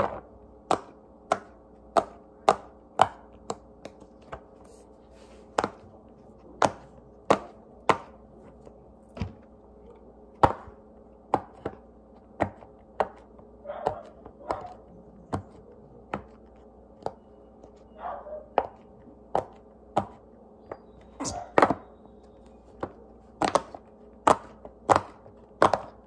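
Silicone pop-it fidget toy bubbles pressed in one after another with the fingers, each giving a sharp pop, about one to two pops a second at an uneven pace.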